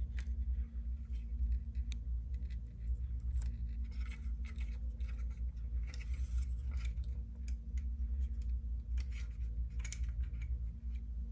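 Electrical tape being handled, cut and pressed into place by hand: scattered small clicks and short scratchy scrapes, over a steady low hum.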